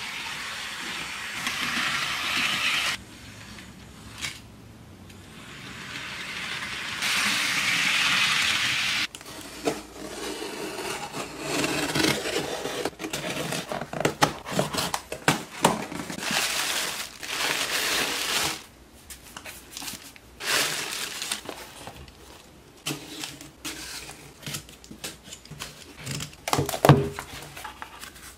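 A hissing noise in two stretches, then a craft knife slitting packing tape on a cardboard parcel, followed by cardboard flaps and an inner box being handled. This brings many short scrapes, rubs and clicks.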